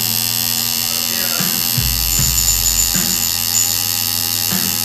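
Electric tattoo machine buzzing steadily, under background music with a beat.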